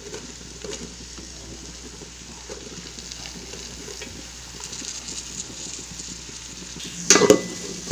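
Chopped onions and green chillies sizzling in hot coconut oil while being stirred in the pan. About seven seconds in, a few louder knocks of the spoon against the pan.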